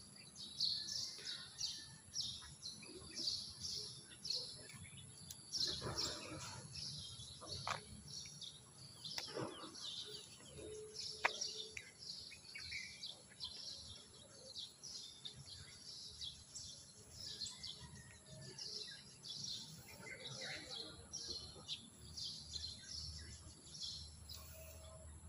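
Birds chirping with many short, high calls over faint outdoor background noise, and a few scattered soft knocks.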